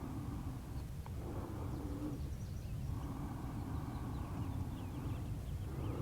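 Outdoor ambience: a steady low rumble, with faint, short bird chirps from about two seconds in.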